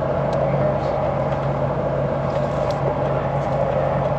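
A vehicle's engine and road noise, heard from inside the cab as it drives along at a steady pace, with an even hum.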